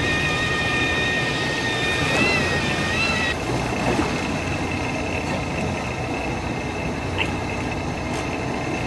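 Steady rumble and wash of a fishing boat at sea, with a high steady whine over it that wavers in pitch about two seconds in and narrows to one thinner tone at about three seconds.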